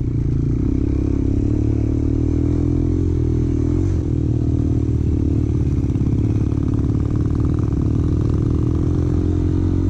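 Motorcycle engine running steadily under way, with some clatter mixed in.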